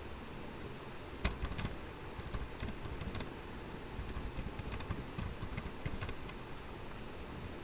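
Typing on a computer keyboard: irregular runs of key clicks that start about a second in and stop a little after six seconds, over a steady low background hiss.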